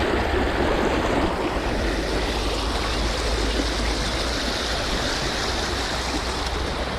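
Small stream running, a steady rush of water with a low rumble underneath.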